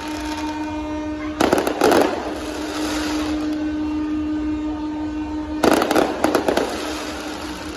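Tugboat horns holding a long, steady blast, while fireworks go off overhead in two volleys of bangs and crackles, about a second and a half in and again near six seconds.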